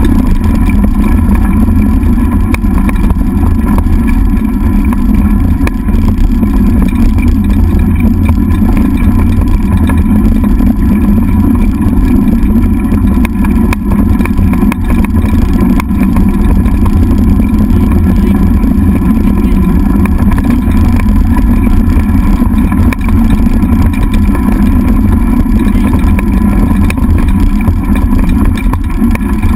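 Loud, steady rumble of a dog scooter's wheels rolling fast over a dirt and gravel trail, mixed with wind buffeting the microphone of a camera mounted on the scooter's handlebars.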